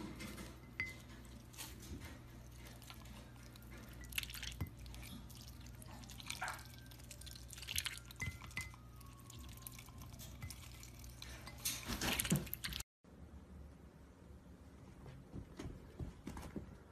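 A domestic duck dabbling in water and food bowls: small splashes and drips of water, with its bill clicking against the ceramic bowls.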